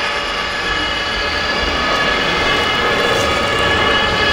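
Radio-controlled model fire trucks running, a steady mechanical drone with several held tones.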